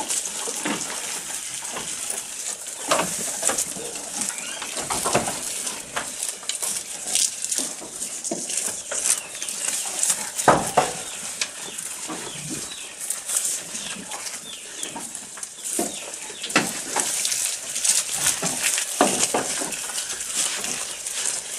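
Several goats chewing and tearing long green leafy fodder, with crunching, crackling bites and the rustle of leaves being pulled from the trough, in quick irregular bursts throughout.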